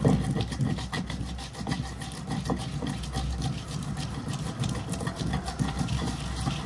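Almond-and-spice paste being ground in a dauri with a wooden pestle (ghotna): a quick, rhythmic run of rubbing knocks over a steady low hum.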